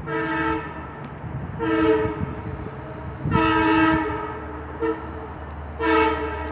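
Long Island Rail Road train's multi-tone horn blowing the grade-crossing signal: long, long, short, long blasts, the sign of a train approaching a road crossing. Before it comes one more long blast, and a steady low rumble lies underneath.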